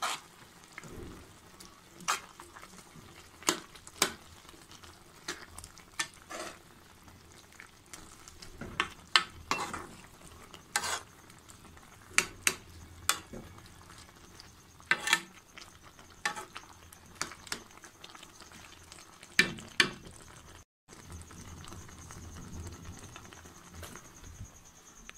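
A spoon stirring food in a cooking pot, knocking and scraping against the metal in irregular sharp clicks over a low sizzle of frying. After a cut, the sizzle carries on more steadily with fewer knocks.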